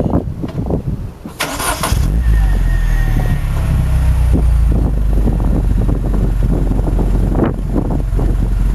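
R56 Mini Cooper started up through its GTG stainless-steel catback exhaust: a brief starter whir about a second and a half in, then the engine catches and settles into a steady idle with a low, even exhaust note.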